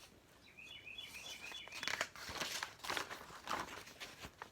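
Pages of a picture book being turned and handled: a run of paper rustles and crinkles. Before them, about half a second in, comes a brief high warbling chirp.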